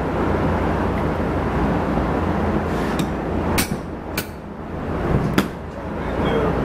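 Four sharp metal knocks and clinks about halfway through, from hand tools working a bush hog driveline's U-joint, over the steady noise of a fan.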